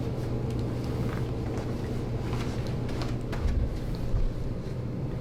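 Rustling and soft clicks of hands and body moving on a treatment table during a leg stretch, over a steady low room hum, with a couple of dull thumps near the end.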